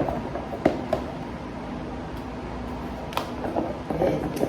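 A few light clicks and knocks from kitchen containers and utensils being handled, over a low room background.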